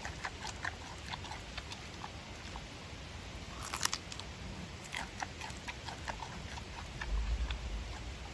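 Giant panda biting and chewing a chunk of pumpkin: many short wet smacking clicks, with a louder crunch about four seconds in. A low rumble joins near the end.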